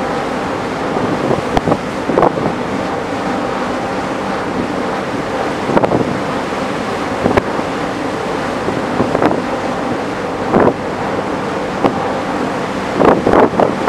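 Wind buffeting the microphone on a ferry's open deck, over the steady rush of the ship's churning wake. Sharper gusts hit every second or two, with a cluster of them near the end.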